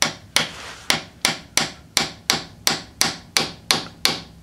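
Hammer tapping on the back of a screwdriver handle, driving a new transmission filter seal into its bore in the transmission case. The taps are sharp and evenly spaced, about three a second.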